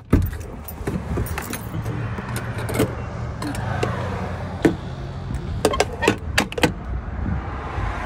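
Refuelling a vehicle at a gas pump: a run of irregular sharp metallic clicks and rattles from handling the fuel nozzle and keys, over a steady low hum.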